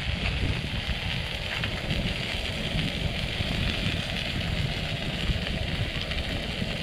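Oil sizzling steadily in a frying pan, with wind rumbling unevenly on the microphone.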